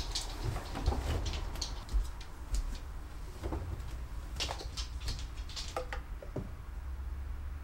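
Fabric rustling as bedding is pushed into a top-loading washing machine, with a scatter of light plastic clicks and knocks from the machine and from a detergent bottle and measuring cup being handled.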